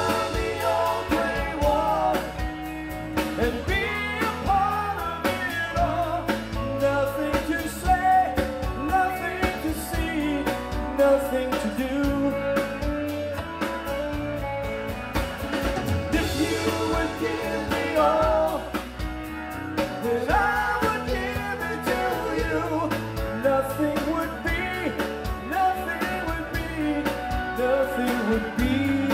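Live rock band playing a song with a lead singer, a drum kit and electric guitars.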